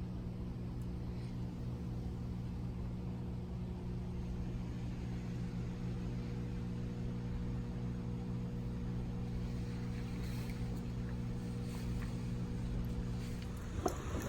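A motor running with a steady, even hum. There is a sharp knock near the end, and the higher part of the hum drops away after it.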